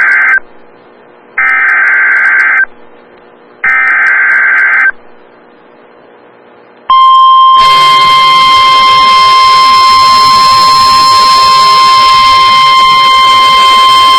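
Emergency Alert System digital header bursts: the end of one and then two more harsh, warbling data screeches, each about a second long with a second's gap between them. About seven seconds in, a loud, harsh, steady single-pitch alert tone starts and holds, the signal that a warning message follows.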